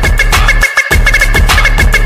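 Outro music with a heavy, fast beat and a repeating high two-note figure. The bass drops out briefly a little under a second in.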